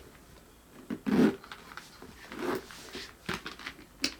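Handbag being handled: rustling, with a louder burst about a second in and a few light clicks after.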